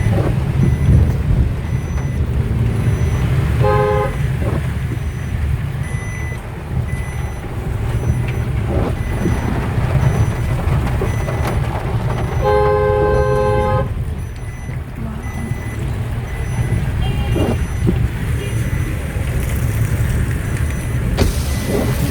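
Steady low road and engine rumble heard from inside a moving Maruti Suzuki WagonR. A horn toots twice: a short toot about four seconds in and a longer one of about a second and a half near the middle.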